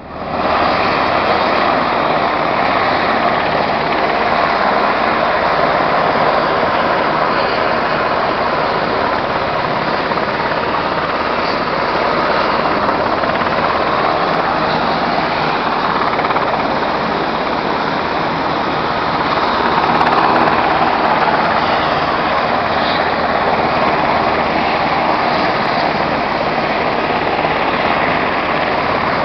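Hurricane-force wind blowing as a steady, loud rush of noise, swelling in a stronger gust about two-thirds of the way through.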